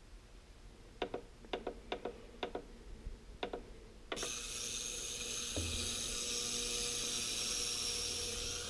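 A few sharp clicks, then about four seconds in an ultrasonic parts cleaner starts up with a steady high hiss and buzz, cleaning a varnished chainsaw carburetor.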